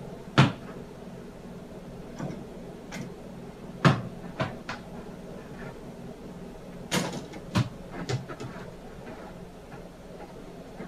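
Sharp knocks against a wooden loft-bed frame and mini basketball hoop, about six in all with short gaps between them, over a steady low hum.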